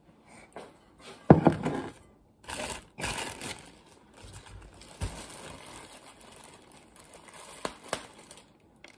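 Plastic bread-bun bag crinkling and rustling as the buns are handled, with a knock about a second in and a couple of sharp clicks near the end.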